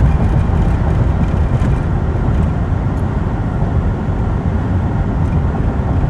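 Steady road noise inside a moving car's cabin at highway speed: a low rumble of tyres and engine with a hiss of wind.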